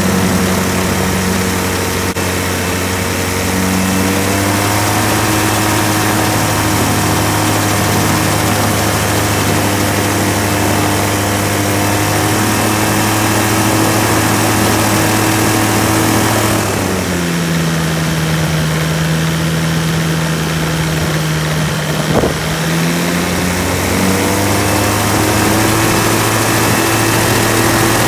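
Rotax 582UL two-stroke, twin-cylinder, liquid-cooled engine turning a propeller at a ground run-up during an ignition check. Its speed rises a few seconds in and holds steady, dips clearly at about the two-thirds mark, then picks up again near the end. A small click comes just before the recovery.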